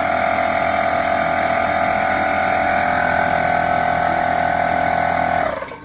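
Bostitch 6-gallon oil-free pancake air compressor running, its motor and pump giving a steady whine with a band of higher tones. It winds down and stops near the end.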